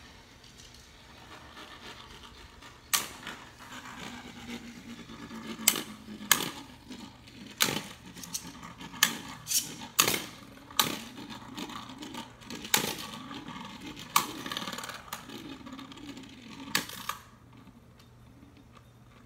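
Two Beyblade Burst spinning tops whirring around inside a bowl and clacking sharply against each other a dozen or so times as they collide. Near the end the clashes stop and the tops spin down more quietly.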